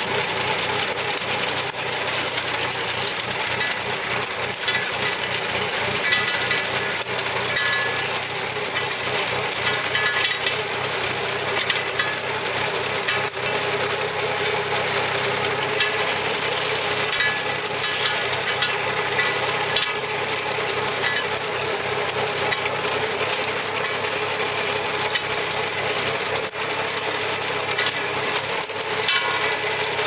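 Small four-wheel tractor's engine running steadily while its tractor-drawn potato harvester digs. The harvester's shaking rod chain makes a dense, crackling clatter of many small knocks as soil and potatoes tumble through it.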